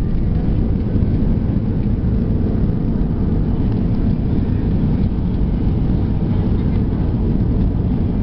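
Cabin noise of an Airbus A320-200 rolling out on the runway just after landing: a steady, loud, deep rumble of engines, airflow and wheels as the jet decelerates with its ground spoilers up.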